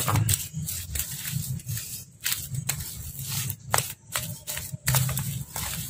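Hand mixing moist grated cassava with grated coconut in a stainless steel bowl: irregular rustling and scraping of the grated mass, with light scrapes against the metal.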